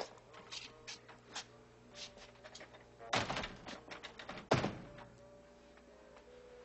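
Light knocks and steps on a wooden shop floor, then two louder thumps about three and four and a half seconds in, the second the loudest and sharpest.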